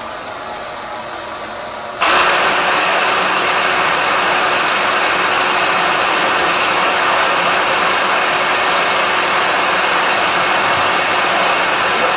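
A drain-cleaning machine's motor running under a quieter steady noise, then about two seconds in a louder motor cuts in and runs steadily with a whooshing rush and a constant high whine.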